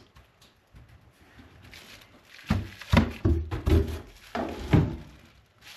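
A box being moved about on a workbench: a quick run of knocks, thuds and scrapes about halfway through.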